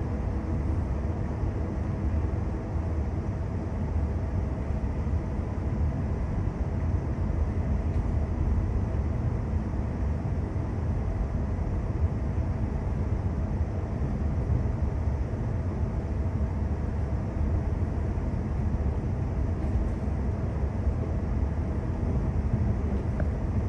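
Electric suburban passenger train heard from inside the carriage while running: a steady low rumble of wheels on the track, with a faint steady hum over it.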